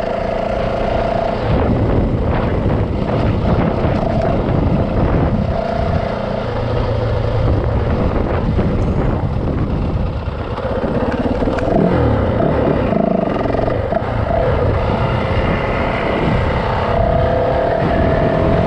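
Yamaha 450 dirt bike's single-cylinder four-stroke engine running while riding, its pitch rising and falling with the throttle, with a brief drop in level about ten seconds in.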